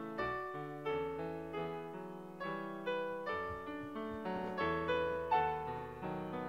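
Background piano music: unhurried single notes and chords, each ringing and dying away.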